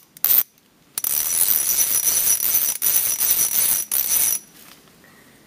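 Ratchet wrench clicking: a couple of quick clicks, then about a second in a fast, continuous metallic ratcheting that runs for about three and a half seconds and stops abruptly.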